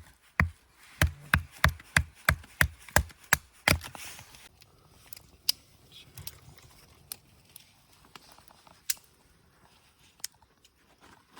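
Wood being chopped: a quick run of about ten sharp, evenly spaced strikes, roughly three a second, stopping about four seconds in, followed by a few scattered faint snaps.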